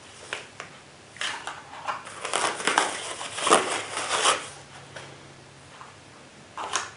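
Packaging crinkling and rustling in the hands in irregular bursts as an item is unwrapped, with one more short rustle near the end.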